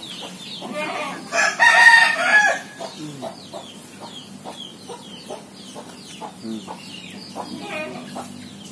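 A rooster crows once, about a second and a half in, with hens clucking and short chirps around it.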